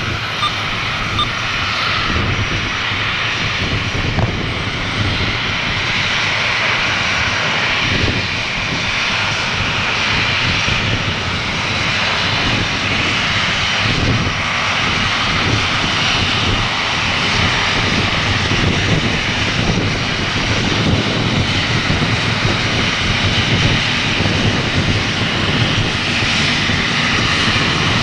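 Boeing 737 jet engines running at taxi power as the airliner taxies after landing: a steady rushing whine that grows slightly louder toward the end.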